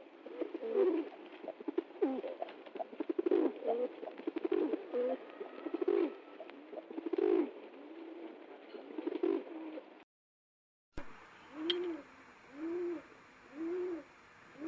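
Pigeons cooing: first a dense, overlapping run of low coos. After a second's break comes a steady series of single coos, about one a second, each rising and falling in pitch, with a brief click near the start of the series.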